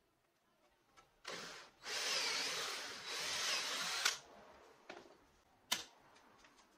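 Cordless drill with a Forstner bit boring through plywood: a brief burst, then about two seconds of steady drilling with a short dip in the middle, stopping about four seconds in. Near the end comes a sharp knock as the drill is set down on the bench.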